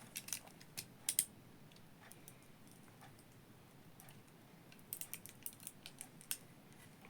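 Scattered light clicks and taps of small objects being handled: a couple about a second in, then a quick run of them about five to six seconds in.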